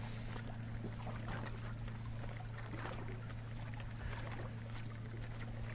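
A boat motor running steadily at low speed, a constant low hum, with water lapping and splashing lightly against the hull.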